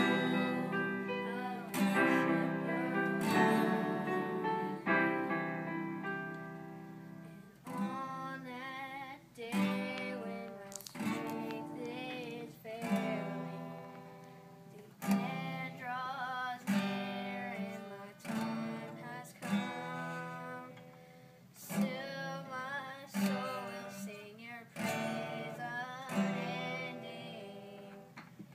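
Acoustic guitar strummed in repeated chords, with a young voice singing a melody over it.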